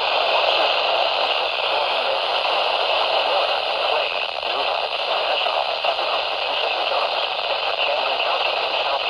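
Weather radio receiver giving a steady static hiss, the sound of a weak or noisy broadcast signal.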